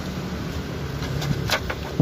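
Sharp metallic clicks and a knock as parts are handled around the engine's belt pulleys and tensioner, over a steady low hum. The clicks come about one and a half seconds in, and the loudest knock comes right at the end.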